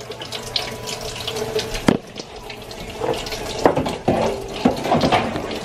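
Kitchen faucet running into a stainless steel sink during dishwashing, with a few sharp clinks of dishes and jars being handled, the loudest about two seconds in.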